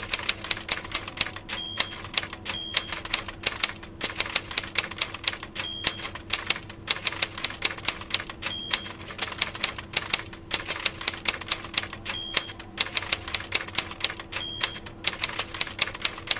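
Typewriter sound effect: rapid mechanical keystrokes, several a second, with short pauses. A short carriage-return bell dings about six times, once at each line end.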